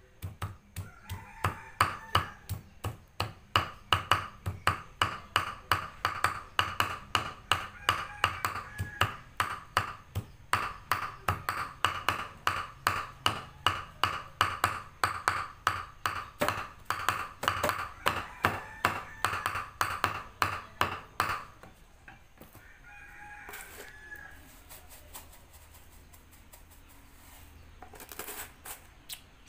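Steel meat cleaver chopping cooked meat on a thick wooden chopping block: rapid, even chops about three a second, each with a dull thud, stopping about 21 seconds in. A rooster crows repeatedly in the background, and near the end a seasoning shaker is shaken over the meat.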